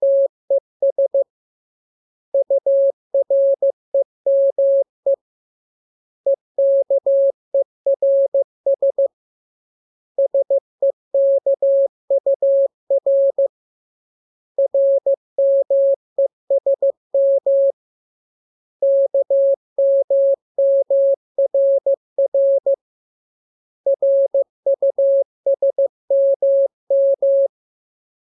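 Morse code sent as a single steady tone keyed on and off in dots and dashes, in groups about three seconds long with pauses of about a second between them: a practice text in the letters K, M, U, R, E and S.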